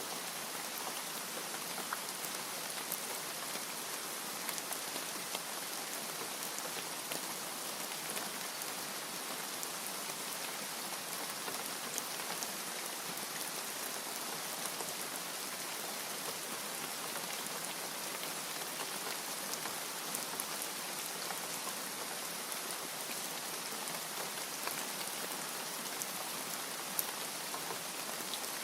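Steady rainfall, an even hiss of rain with many small drop ticks.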